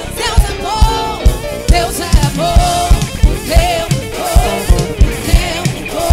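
Live band playing an upbeat gospel worship song: a steady drum-kit beat with keyboard, and lead and backing vocalists singing.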